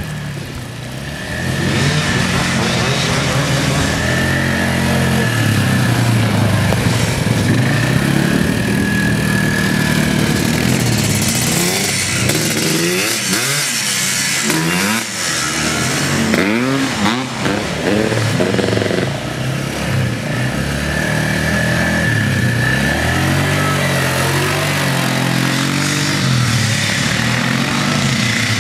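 Quad bike (ATV) engines running and revving, the pitch climbing and dropping again and again as the riders accelerate and ease off, with quick up-and-down revs through the middle.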